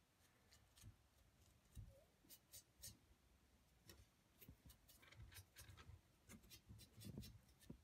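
Faint, scattered scuffs and ticks of a small sponge wiping underglaze off the sculpted surface of a clay box.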